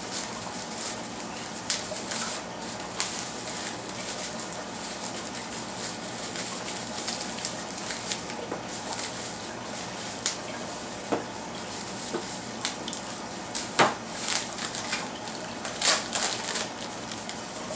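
Bubble-wrap packaging being pulled and torn off a boxed ballast by hand: scattered crinkling and clicking, with a few louder crackles in the second half.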